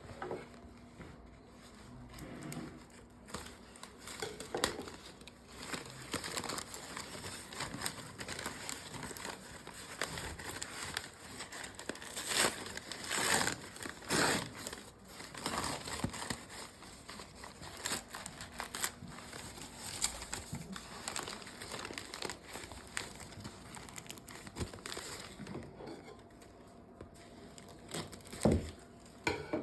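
Packing material crinkling and rustling in irregular bursts as a shipped potted plant is unwrapped by hand, busiest about halfway through. A sharp knock comes shortly before the end.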